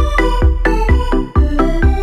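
Electronic background music with a steady, driving beat of about two and a half kicks a second and melodic synth notes.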